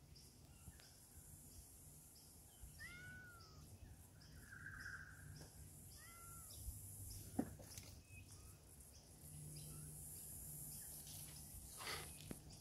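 Faint bush ambience: a soft high hiss with quiet, regular high ticking, and two short rising-and-falling animal calls, about three and six seconds in.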